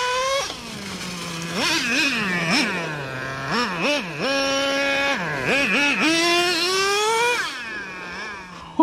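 Traxxas Revo 3.3 RC truck's two-stroke nitro engine running hard, revving up and down with quick throttle blips and holding a steady high pitch twice for about a second. A sharp knock comes right at the end.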